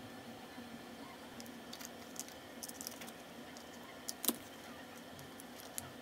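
Small scissors snipping a sheet of nail-art stickers, with light clicks and crinkles of the sticker sheet being handled; the sharpest snip comes about four seconds in. A faint steady hum runs underneath.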